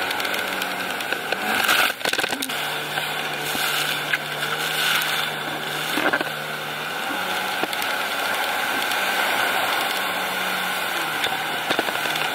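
Jet ski engine running beneath a steady rush of water and wind. Its pitch shifts a couple of times, with a few brief splashes or knocks in the first half.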